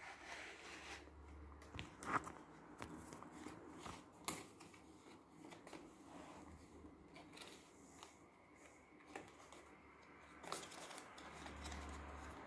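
Stiff paper and card rustling and flapping as the flaps and pages of a handmade scrapbook card are opened and turned, with two sharper clicks about two and four seconds in.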